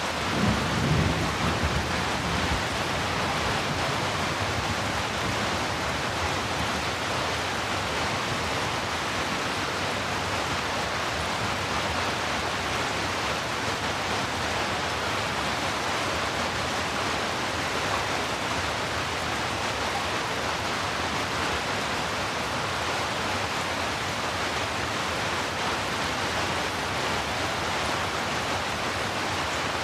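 Heavy rain falling steadily as an even, dense hiss, with a brief low rumble in the first two seconds or so.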